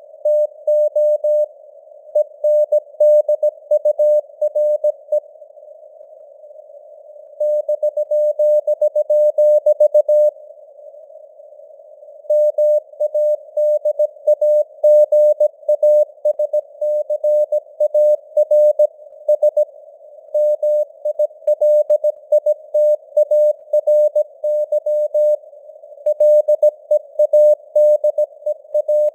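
Morse code (CW) sent at 17 words per minute: a single steady tone keyed on and off in dots and dashes, in runs of characters with pauses of a second or two between words, over a hiss of simulated radio noise.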